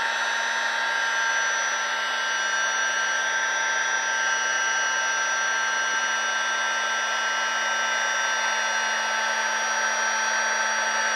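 Handheld electric air pump running with a steady whir, blowing air through the valve of an inflatable camping sleeping pad to inflate it.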